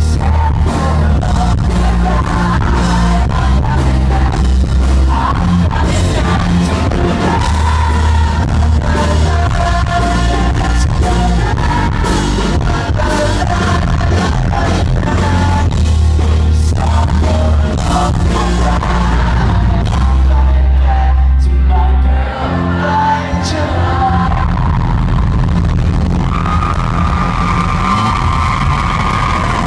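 Live pop-rock band playing loudly with a singer, heard from the audience in a concert hall. The heavy bass drops out for a moment a little over 20 seconds in, then comes back.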